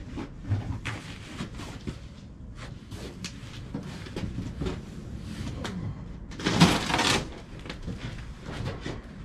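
Scattered clicks and knocks of things being handled, with one louder, longer knock-and-scrape about six and a half seconds in.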